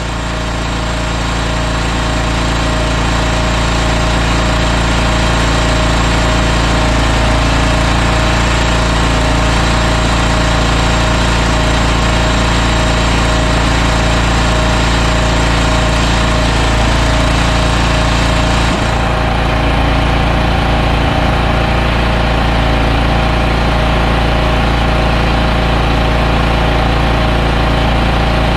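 Portable bandsaw sawmill's engine running steadily, fading up over the first few seconds. About two-thirds of the way through, a high hiss above the engine stops suddenly while the engine keeps running.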